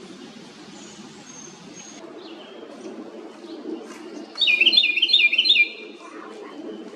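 A wren calling: a loud burst of four or five quick repeated notes about halfway through, lasting just over a second, with fainter chirps before it, over a steady low background noise.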